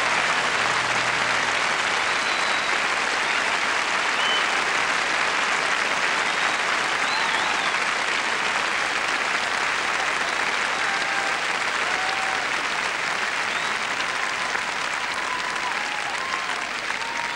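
Large arena audience applauding and cheering after a song, with scattered whistles and shouts over the clapping. The applause slowly fades near the end.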